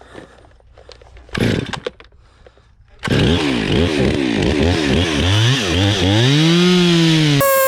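Two-stroke chainsaw starting up loudly about three seconds in and revving rapidly up and down, then rising and falling once more slowly. A short loud rasp comes before it, about a second and a half in.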